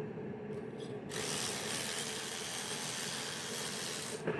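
Hand ratchet wrench clicking rapidly for about three seconds, starting about a second in, as a bolt is spun out of the engine.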